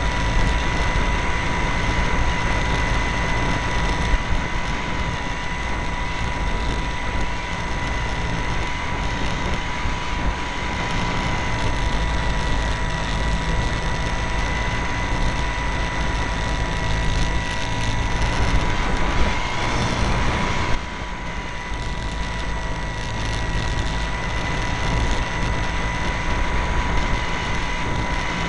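Radio-controlled plane's motor and propeller running at a steady, whining pitch, heard from a camera on the plane, with wind rushing over the microphone. About two-thirds through, the pitch rises briefly and then the sound drops suddenly to a slightly lower level as the throttle comes back.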